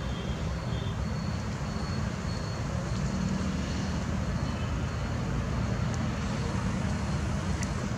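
Steady low background rumble, with a few faint, short high chirps.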